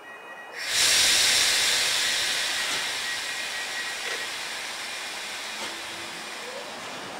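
Compressed air hissing out of an EP07 electric locomotive's pneumatic system, starting suddenly about half a second in and slowly fading away.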